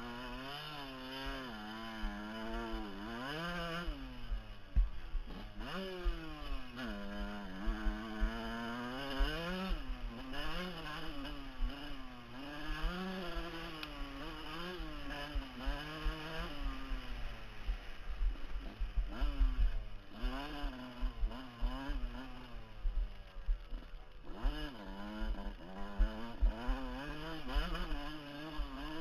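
Dirt bike engine revving up and down again and again as it climbs a rough dirt hill. Underneath runs a low rumble with frequent knocks.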